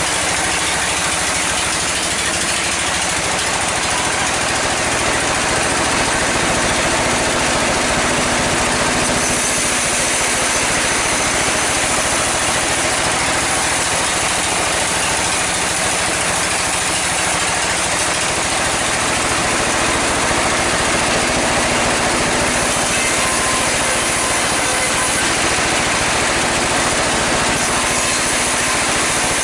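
Sawmill saw running continuously at a steady, loud level while cutting mahogany timber that is pushed through by hand.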